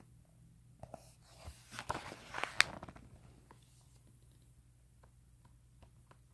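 Handling noise of a glossy printed page and the phone held over it: a flurry of rustles and small knocks about one to three seconds in, with one sharp click in the middle of it, then only faint ticks.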